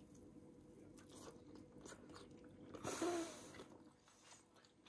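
A person chewing a bite of steak, with small wet clicks of the mouth, and a short louder sound about three seconds in.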